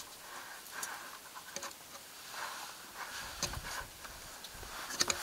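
Faint rustling with scattered light clicks, and a quick cluster of sharper clicks near the end.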